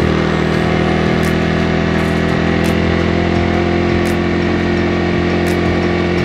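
Honda Winner X's 150 cc single-cylinder engine running at a steady cruise in fourth gear, heard from the rider's seat with wind rushing over the microphone.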